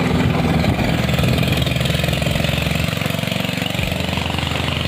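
Engine of a motorized bangka (narrow wooden river boat) running steadily at speed as it passes, easing slightly in loudness as it draws away upstream.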